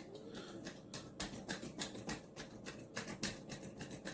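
Light, irregular clicks and taps, a few each second, from hands working with small tools such as a tape measure and pencil.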